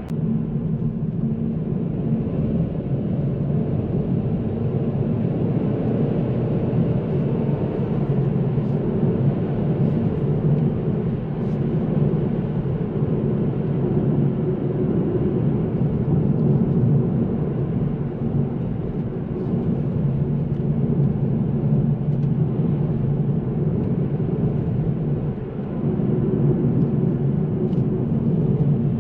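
Kia Ceed SW's 1.5 T-GDI turbocharged petrol engine pulling under load, with tyre and road noise, as the car is driven briskly. The sound eases briefly near the end, then picks up again.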